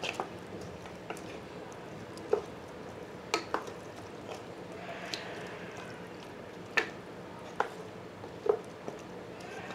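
Wooden spatula stirring thick mutton curry in an open stainless-steel pressure cooker: wet squelching of the meat, onions and gravy, with several sharp knocks of the spatula against the pot.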